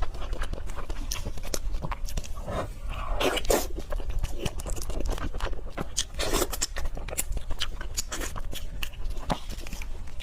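Close-miked eating of spicy pork leg curry and white rice: chewing and biting with many quick wet mouth clicks and smacks.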